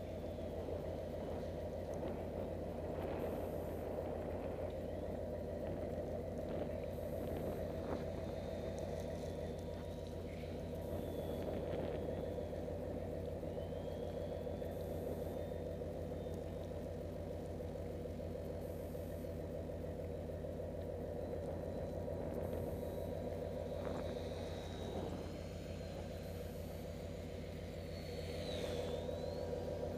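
Radio-controlled model plane's motor and propeller giving a steady, distant drone whose faint whine rises and falls in pitch with throttle changes, over low wind rumble.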